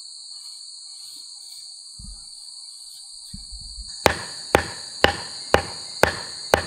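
A knife being struck into a wooden plank with a wooden baton: six sharp knocks, about two a second, starting a little past halfway. A steady high buzz of insects carries on underneath.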